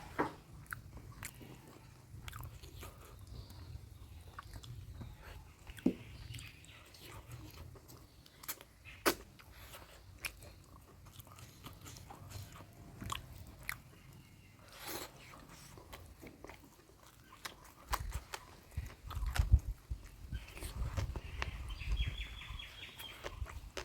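Close-miked eating: chewing and biting of mutton curry, with wet mouth smacks and scattered sharp clicks. A run of louder low thumps comes in the last few seconds.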